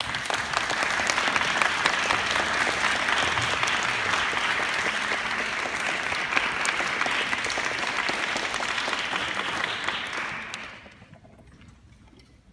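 Audience applauding, a dense patter of many hands clapping that dies away about ten and a half seconds in.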